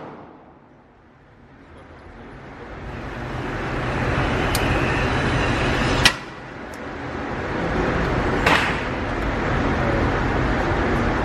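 Two sharp gunshot cracks, about six and eight and a half seconds in, over a steady rushing background noise that swells up over the first few seconds.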